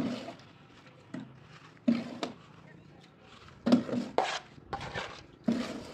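Steel plastering trowel working a fresh coat of white cement on a wall: about seven sharp scrapes and knocks of the blade at irregular intervals, the loudest a little past the middle.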